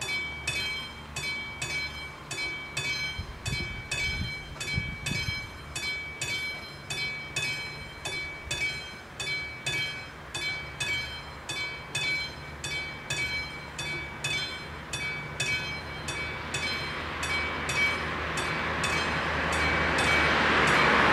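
Electronic warning bell of an AŽD-71 railway level crossing, ringing repeatedly at about one and a half strikes a second while the barriers are down. The ringing dies away near the end as an approaching car's tyre and engine noise rises.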